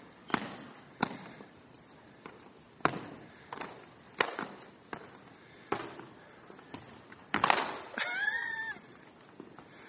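Rapier and dussack sparring on a hardwood gym floor: a string of sharp, echoing knocks from stamping footwork and blades meeting, with a quick cluster about seven and a half seconds in. Right after it a sneaker squeaks briefly on the floor, rising then falling in pitch.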